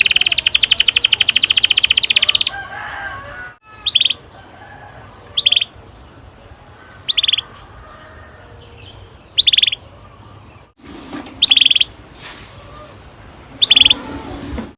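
Canary singing: a fast rolling trill for about the first two and a half seconds, then six short, sharp chirps about every two seconds.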